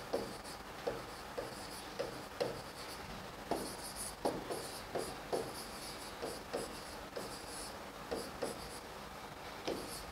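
Chalk writing on a blackboard: irregular light taps and short scratchy strokes, about one or two a second, as words are written out.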